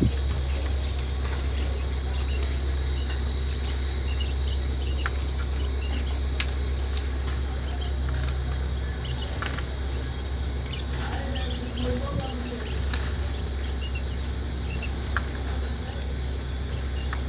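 A small bird chirping faintly and irregularly over a steady low rumble, with a few sharp clicks.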